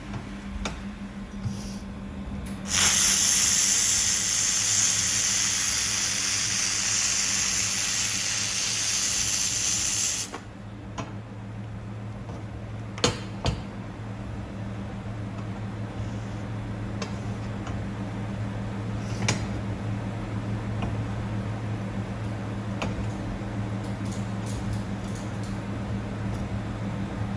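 Handheld fiber laser welding gun firing with its shielding gas, giving a loud steady hiss for about seven seconds that stops abruptly. Under it runs a steady low hum from the laser welder's unit, with a few sharp clicks after the hiss stops.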